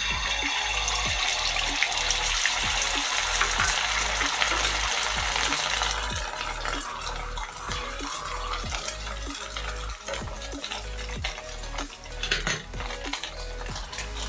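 Beaten egg sizzling in hot oil on a flat griddle (tawa), loudest in the first few seconds and then settling to a lower fry. Light, repeated knocks and scrapes come from a spatula pressing and spreading it.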